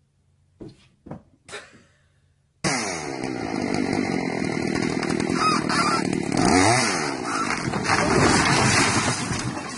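Chainsaw starting abruptly about two and a half seconds in and running at high revs as it cuts down into a packed earth-and-straw wall, its pitch dipping and rising about halfway through. Before it, three short sounds in quick succession.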